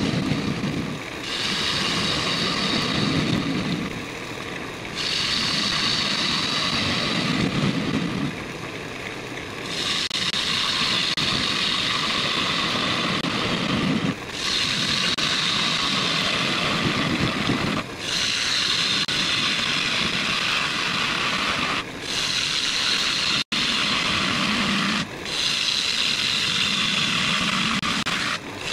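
A gouge cutting into the inside of a spinning ash bowl on a wood lathe, with a steady hissing rasp as shavings come off. The cuts run in passes of a few seconds each, separated by brief pauses.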